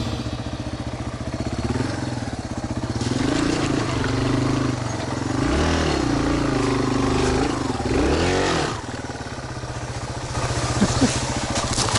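Yamaha Serow enduro motorcycle's single-cylinder four-stroke engine being ridden off-road, its revs rising and falling as the throttle is worked. About nine seconds in it drops to a lower, quieter note, and a few sharp knocks come near the end.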